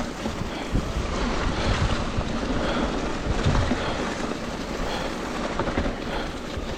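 Wind buffeting the microphone over mountain bike tyres rolling fast on a dirt trail loose with leaves, with a few short knocks as the bike goes over bumps.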